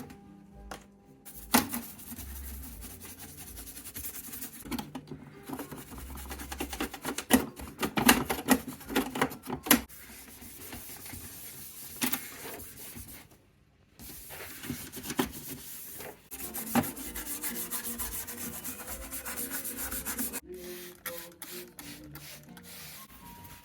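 Hands handling record player parts: irregular clicks and taps mixed with rubbing and scraping, broken by a couple of short pauses.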